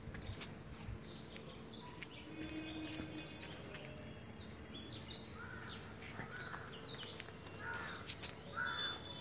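Birds chirping and calling: many short high chirps throughout, with a few louder, harsher calls near the end.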